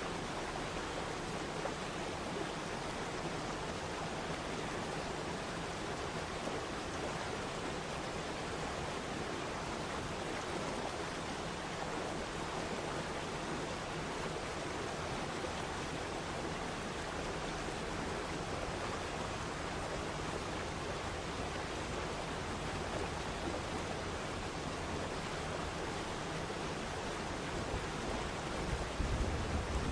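Waterfall: a steady, even rush of falling water. Near the end a low rumble joins it and the level becomes uneven.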